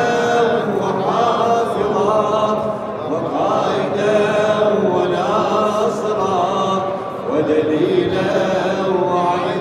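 Many men's voices chanting together in long, drawn-out phrases of devotional chant, with slight dips between phrases.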